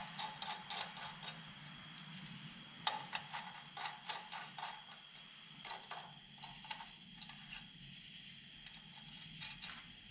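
Scattered faint clicks and light metal taps of new studs and copper-coloured nuts being handled and threaded by hand into a cast iron turbo manifold flange, over a low steady hum.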